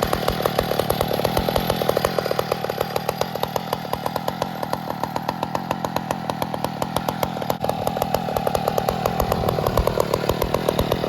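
Small single-cylinder engine of a motorized bicycle running steadily with a fast, even firing beat. The pace eases a little midway and picks up again near the end.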